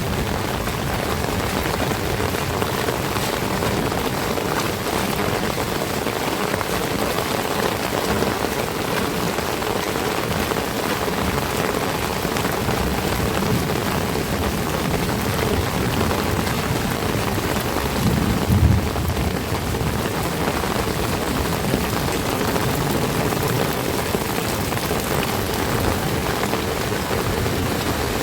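Heavy rain falling steadily, a dense, even hiss of drops. About two-thirds of the way through there is one brief low rumble.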